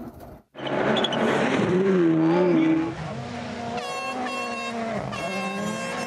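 Rally car engine at high revs after a brief break in the sound about half a second in. Its pitch wavers at first, then holds nearly level with a brief dip near the middle.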